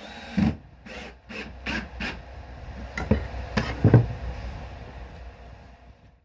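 A metal pry bar working against a plywood subfloor and the wall edge: about five short scrapes, then several sharp knocks with dull thuds about three to four seconds in.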